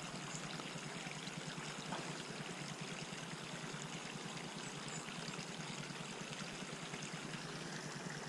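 Steady trickle of running water, an even hiss with no distinct splashes.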